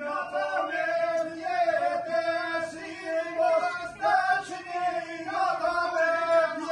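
A group of voices singing an Albanian folk dance song in a chant-like melody, with one note held steady underneath.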